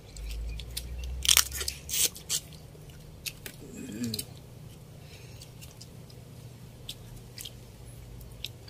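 Eating crab by hand: crunching and chewing, with a few sharp cracks of crab shell in the first couple of seconds and scattered smaller clicks after.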